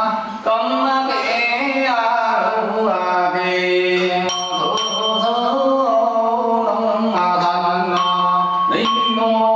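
Chanted singing over a steady drone: a voice carries a wavering melody above a held low tone, with a brief drop in loudness about half a second in.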